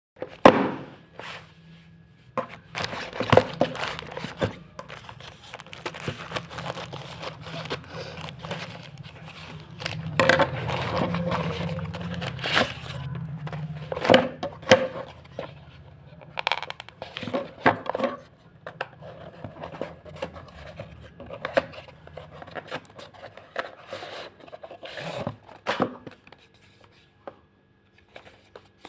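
Handling noises while unboxing a tripod selfie stick: packaging rustling and scraping, with irregular clicks and knocks from the plastic parts. The handling is busiest in the first two-thirds and thins out to occasional clicks near the end.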